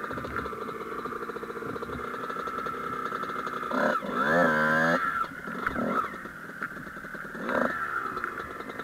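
Two-stroke motocross bike engine idling with an even, rapid beat. About four seconds in, it is revved once, its pitch rising and then holding for about a second, with a shorter blip near the end.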